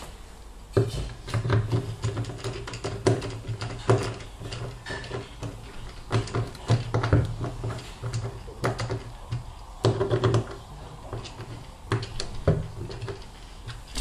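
Irregular metallic clicks, taps and scrapes of a screwdriver and screws at the drum hub of a top-loading washing machine, as a new bearing flange (cruceta) is screwed on and drawn into its seat.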